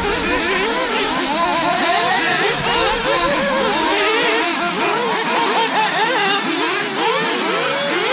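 Several nitro RC buggy engines running at once, their high-pitched whines overlapping and constantly sweeping up and down as the cars accelerate and brake around the track.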